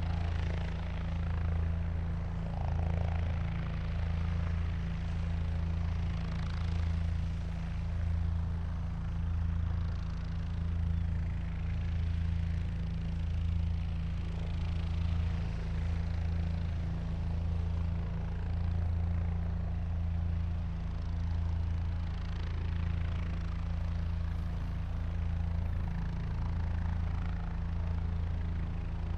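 Helicopter engine and rotor running steadily, a loud low drone that swells and fades slowly and evenly.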